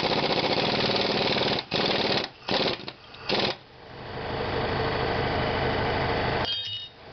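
Impact wrench hammering on the bolts that hold the rear strut to the knuckle: a long rapid burst, three short bursts, then a steadier run that builds up after about four seconds and breaks off near the end.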